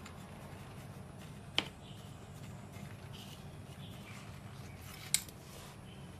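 Faint scraping of a paintbrush spreading potting soil over freshly sown coriander seeds in a plastic pot, over a low steady hum. Two sharp clicks, one about a second and a half in and one about five seconds in.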